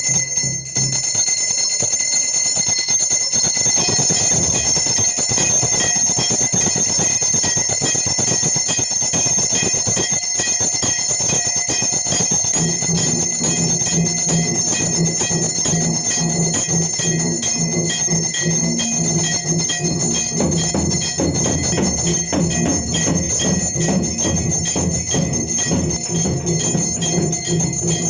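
Temple bells ringing continuously under fast, unbroken striking. From about halfway through, a low, steady droning tone joins in.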